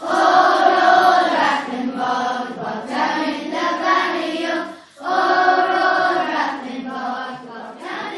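A choir singing in two long phrases, with a brief break about halfway through.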